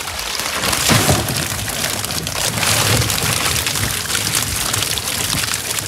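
Water pouring and splashing off a wet fishing net as it is hauled into a boat, with a heap of freshly caught live fish flapping and slapping together, and a louder splash about a second in.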